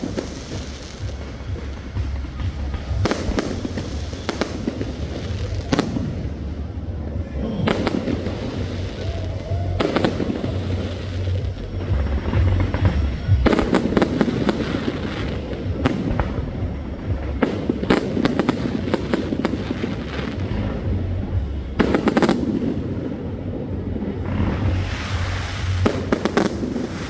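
Fireworks display: clusters of sharp bangs and crackling bursts that come again and again, over a continuous low rumble, with Music playing beneath.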